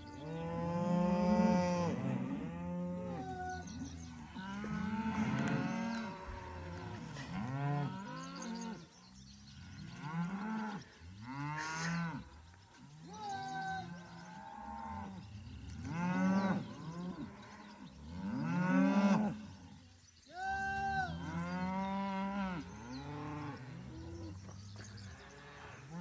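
A herd of cattle mooing, many calls overlapping and following one after another.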